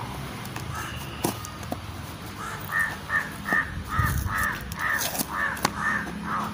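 A crow cawing in a quick series of about a dozen calls, starting about two and a half seconds in, with a few sharp clicks from a small cardboard box being handled.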